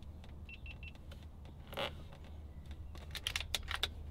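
Quiet handling of an FX Impact MKII air rifle as it is readied for a shot: a quick run of sharp clicks in the last second or so. Three short electronic beeps come about half a second in, over a steady low hum.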